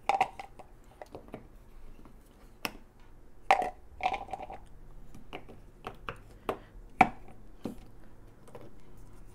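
Hollow plastic toy ice-cream scoops and a plastic scooper from a 1987 Fisher-Price play set knocking and clicking as they are handled and dropped into a cardboard carton: irregular knocks, a few louder ones with a brief hollow ring.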